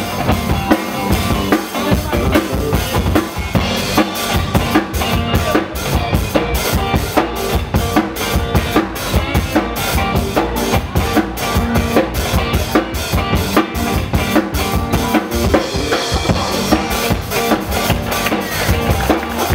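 Funk music with a steady drum-kit beat of bass drum and snare.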